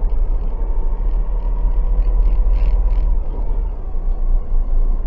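Steady low rumble of a car's engine and road noise, picked up by a dashcam inside the cabin.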